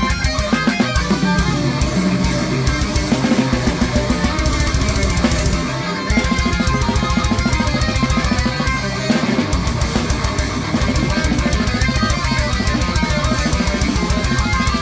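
Technical death metal riffing on a distorted Ibanez Gio GRG7221 seven-string electric guitar over fast drums with kick drum and cymbals. The drums break off briefly about six seconds in and again around nine seconds.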